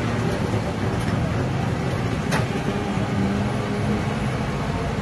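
Steady street din of traffic rumble and hum, with one sharp click a little over two seconds in.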